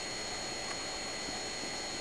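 Steady background hiss with faint, constant high-pitched tones, and no distinct sound from the play-fighting cats.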